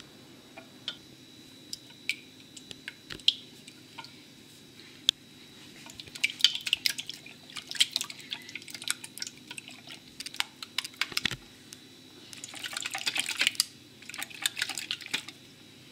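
Raw eggs being beaten by hand with a silicone whisk in a plastic mixing bowl: a few scattered wet clicks at first, then fast, steady sloshing and tapping from about six seconds in, with a short pause before a last busy spell.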